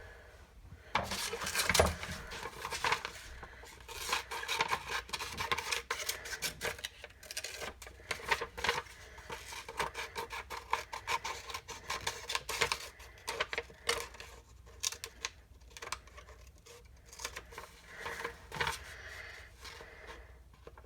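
Pencil rubbing and scratching over a wooden board in quick, irregular strokes, pressing a stencil design into the wood.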